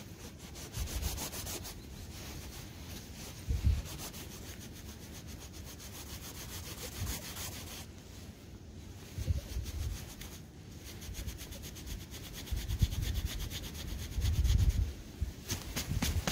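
Scraping and rubbing through loose soil in a freshly dug hole to find a buried coin, with a rapid run of fine scratches and a few dull bumps.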